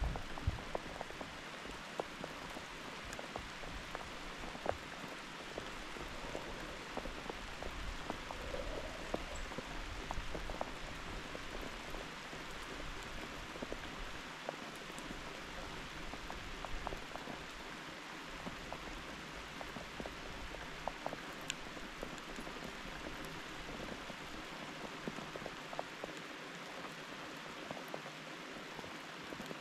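Steady rainfall, with many small ticks of individual drops landing close by.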